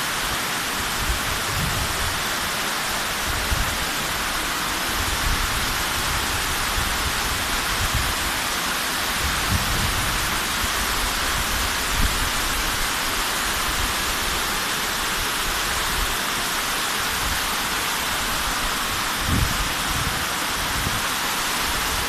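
Waterfall rushing down sloping granite slabs, a steady loud hiss of white water, with scattered short low bumps.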